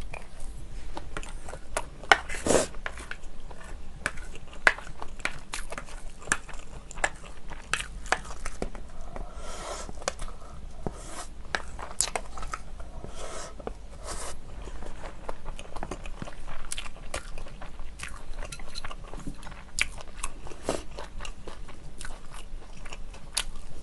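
A person eating kimchi fried rice close to the microphone: chewing, with a spoon clicking and scraping against the bowl as the last rice is gathered up.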